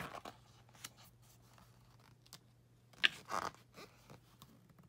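Paper-handling sounds from holding open a softcover book: scattered soft rustles and clicks, with one louder brushing scrape about three seconds in, over a faint steady low hum.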